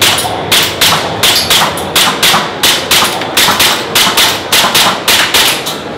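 Airsoft pistol fired in rapid succession, about three to four sharp shots a second, at a timed target; the string of shots stops near the end.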